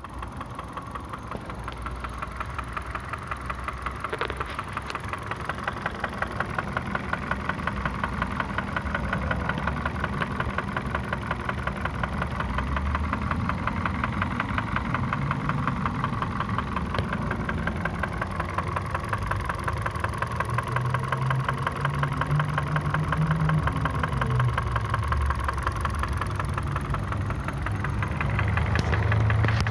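Kia Ceed 1.6 engine running with a rapid, even knocking from the engine. The owner is asking about this knock, which appeared at 62,000 km.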